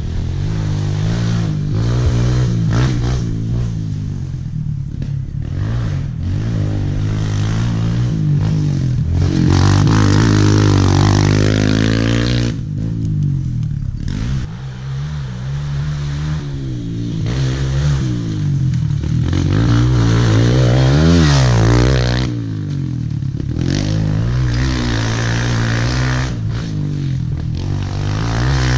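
Kawasaki KLX 140L pit bike's single-cylinder four-stroke engine, heard from on the bike while it is ridden hard around a dirt track. The revs climb and fall again and again through the gears, with the throttle shut off briefly about halfway through and again later on.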